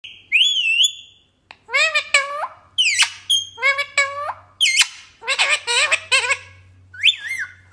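Parrot calling and talking: a high whistled note near the start, then a string of short, pitched squawky syllables that swoop up and down in the rhythm of mimicked speech.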